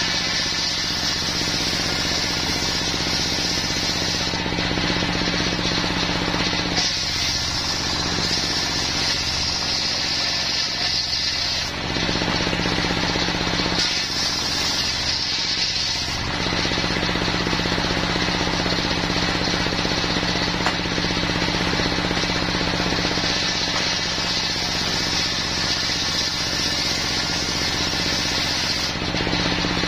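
Stationary single-cylinder diesel engine driving a circular saw bench, its blade ripping wadang wood planks into rafter strips. The engine drone runs steadily while the high cutting noise of the blade comes and eases a few times as each pass starts and ends.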